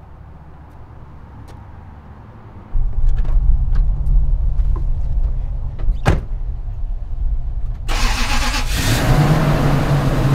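Pickup truck engine starting about three seconds in and running on at a steady idle, with a single sharp knock about six seconds in. Near the end the engine is heard from inside the cab, idling under a steady hiss.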